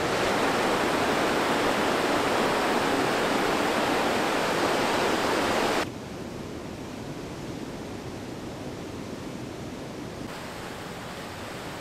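Ellis River rushing over rocks: a loud, steady rush of white water. About six seconds in it cuts abruptly to a much quieter steady rush.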